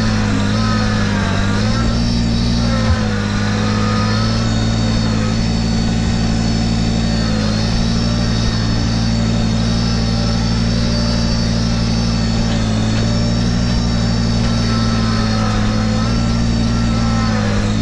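Kubota BX1880 compact tractor's small three-cylinder diesel engine running steadily as the tractor drives along. Its note dips slightly in the first few seconds, then holds steady, with a single knock about three seconds in.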